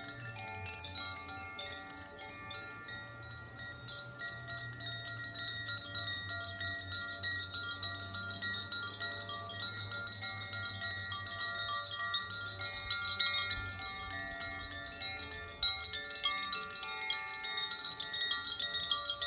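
Handheld tuned wind chimes being rung, with clusters of bright, sustained notes striking and overlapping continuously. A steady low hum sits underneath.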